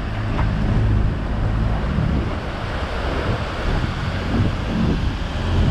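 Small aluminium boat's engine running steadily under a thick rush of falling water from a waterfall close ahead, with wind buffeting the microphone.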